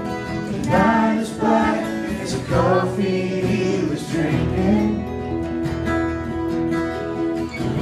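Live acoustic country song: two acoustic guitars strumming with singing over them.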